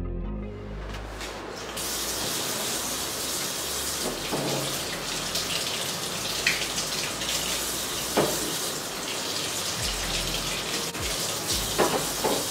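Kitchen tap running water into a steel sink while eggs are rinsed under the stream, the flow starting about two seconds in. A few light knocks sound over the water.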